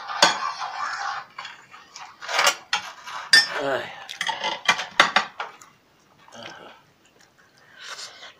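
Dishware clinking: a ceramic dinner plate being knocked and scraped while food is picked from it by hand. Several sharp clinks fall in the first five seconds, and it is quieter after that.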